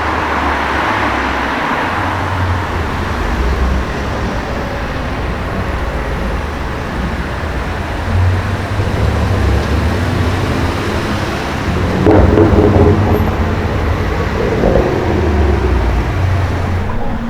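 BMW M5 F90's twin-turbo 4.4-litre V8 running with a low rumble, getting louder around the middle and loudest about twelve seconds in.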